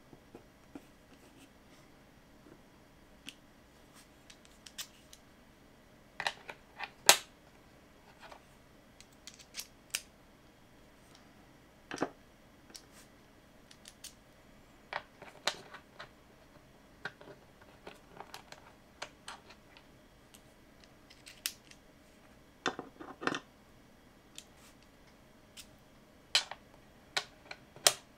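Irregular small clicks and taps from a precision screwdriver working at the screws of a Seagate Barracuda hard drive, with screws and tools being set down on a mat; the sharpest click comes about seven seconds in, with clusters of clicks again near the end.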